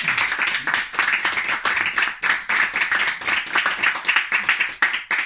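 Audience applauding with many quick claps, thinning out near the end.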